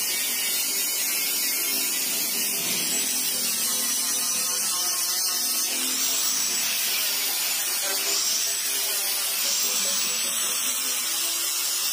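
Small electric angle grinder with an abrasive disc running steadily with a high whine, sanding paint off a steel car hood down to the bare metal.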